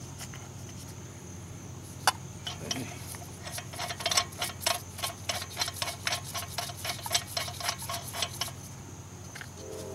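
A lug nut being spun by hand on an alloy wheel's stud. One sharp metallic click about two seconds in, then a run of quick, light metallic ticks, about five a second, for several seconds, over a steady low hum.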